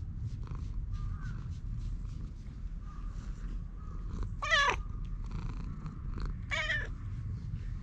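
Domestic cat purring steadily at close range while being stroked, with two short meows, about four and a half seconds in and again two seconds later.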